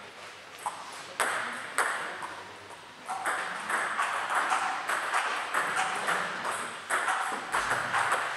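Table tennis ball clicking off bats and tables in a rally, sharp irregular clicks that echo in the sports hall. A few spaced clicks come in the first two seconds, then clicks come thick and fast from about three seconds in.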